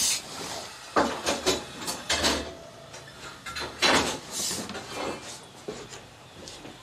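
Wooden snake-box door with a wire-mesh panel being handled, shut and latched: a series of knocks, scrapes and clatters, several in a row around the first two seconds and more about four and five seconds in.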